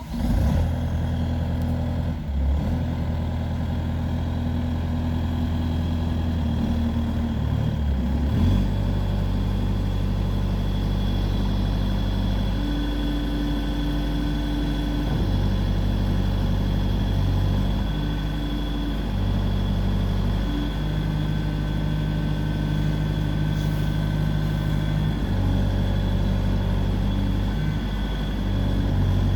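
Bobcat S300 skid steer's diesel engine running, its note stepping up and down in pitch several times as engine speed or load changes.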